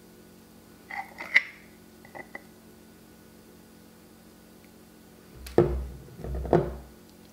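A metal spoon clinking against a glass jar while scooping sourdough starter: a few light clinks about a second in and two smaller ones just after. Then two dull knocks near the end.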